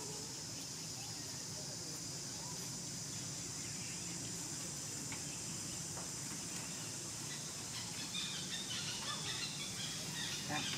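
Steady high-pitched drone of insects, with a run of faint short squeaks over the last few seconds.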